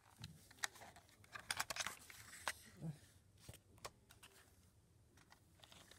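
Faint handling noise: a paper leaflet rustling and scattered light clicks and taps of small plastic items, with a cluster of sharper clicks about one and a half to two and a half seconds in.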